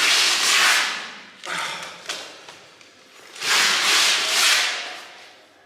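Stiff fabric of a tight powerlifting deadlift suit rubbing as its shoulder straps are peeled down off the lifter: two long rubbing sounds about three seconds apart, with two short scuffs between them.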